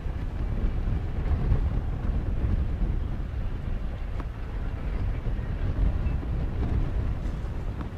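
Low, steady rumble of a taxiing jet airliner's engines, mixed with wind buffeting the microphone.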